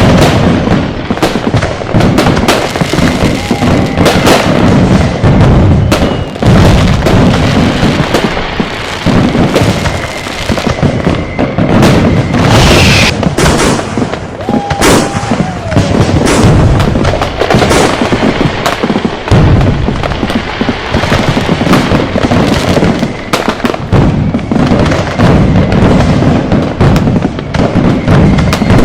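A dense, continuous barrage of firecrackers and fireworks exploding, with overlapping bangs and booms, and a few short whistling tones among them.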